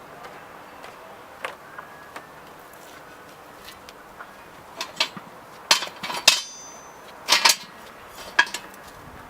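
Metal parts of a Ringryll ring barbecue clanking and clinking as they are handled and set down: a few light knocks at first, then a run of loud clanks about five to eight and a half seconds in, one with a brief metallic ring.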